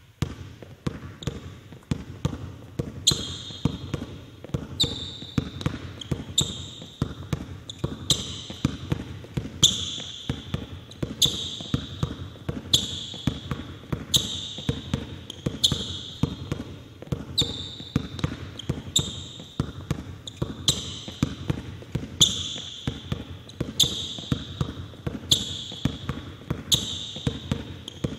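Basketball dribbled on a hardwood gym floor in quick, steady bounces. Short high squeaks recur about every second and a half.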